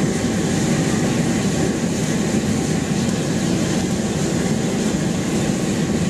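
Jumping-castle (bounce-house) blower forcing air into a wood-fired brick furnace: a steady rushing roar of fan and forced-draught flames.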